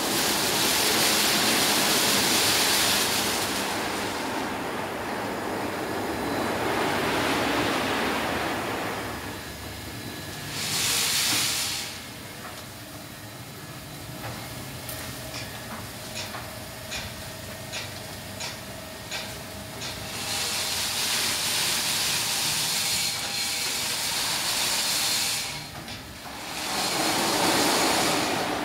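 Automatic car wash machine running: water spray and spinning wash brushes hiss in long loud surges. Between the surges, a quieter stretch has a steady motor hum and a run of regular clicks, about two a second.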